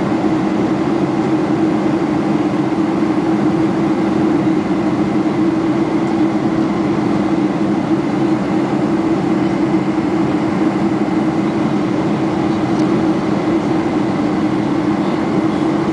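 Cabin noise inside a Boeing 747-400 in flight: the steady drone of the engines and the airflow over the fuselage, with a strong low hum under an even rushing hiss.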